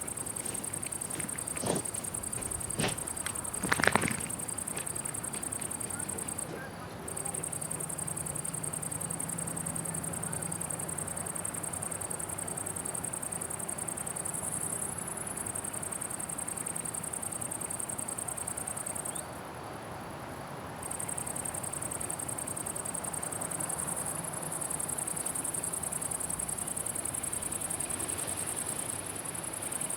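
Meadow insects chirring: a steady, high-pitched stridulation that breaks off briefly twice. In the first few seconds a few short, louder sounds stand out, the loudest about four seconds in.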